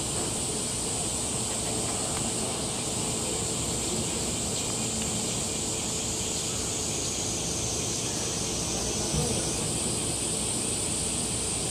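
Steady background hiss with a bright high edge and a faint low hum under it, and one brief soft knock about nine seconds in.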